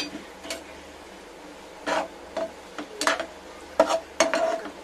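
Spatula scraping and stirring in a non-stick frying pan, working mashed boiled potato into fried onions: short, irregular scrapes and taps against the pan, mostly in the second half.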